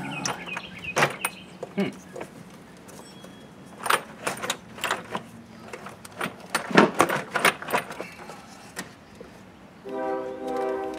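Scattered clicks, clunks and rattles of hand tools and engine parts being handled on top of a V8's intake manifold, in clusters of quick knocks. Background music starts about ten seconds in.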